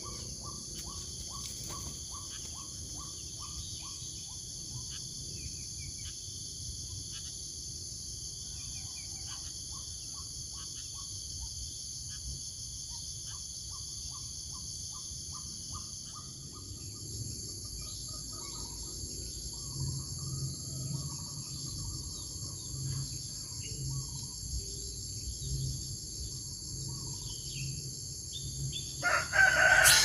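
Birds calling over a steady high-pitched drone: a quick run of short chirps at about four or five a second at the start, then scattered chirps and calls.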